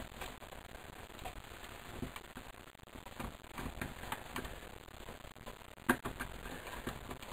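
Faint scattered crackling and ticking from hands pressing a new rubber valve cover gasket into the valve cover's groove, with one sharp click about six seconds in.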